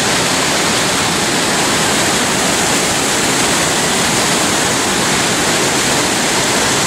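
River rapids below a low dam spillway in heavy flow: whitewater rushing over rock ledges, a loud, steady rush of water.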